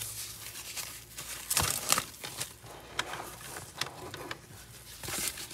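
Hard plastic PSA graded-card slabs clicking and tapping as they are handled and set down: irregular clicks, with a cluster of louder knocks about a second and a half in and another near the end.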